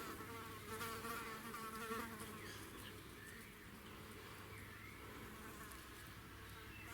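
A fly buzzing, wavering in pitch, for about the first two seconds, then fading. After that it is quiet, with a few faint bird chirps.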